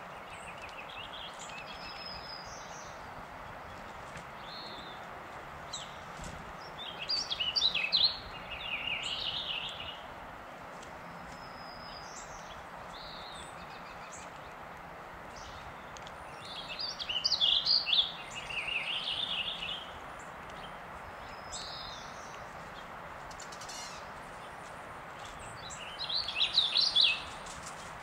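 A songbird singing three phrases about nine seconds apart, each a quick burst of high notes followed by a slightly lower run. Faint short calls and a steady background hiss fill the gaps.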